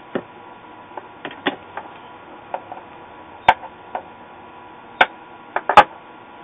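Scattered clicks and light knocks of tools and a circuit board being handled on a workbench during capacitor soldering, the sharpest one a little past halfway and two more near the end, over a faint steady hum.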